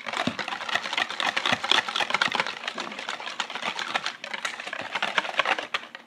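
Wire whisk beating rapidly in a bowl, a dense run of fast clicks and scrapes against the bowl's side, stopping near the end, as glue and liquid starch are mixed into slime.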